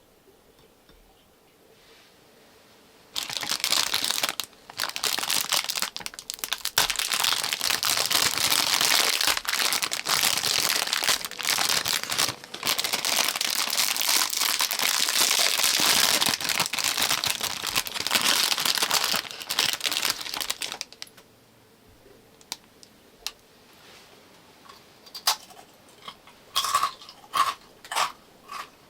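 Crinkly wrapping being crumpled and rustled, starting about three seconds in and lasting some eighteen seconds, then a run of small clicks and taps near the end.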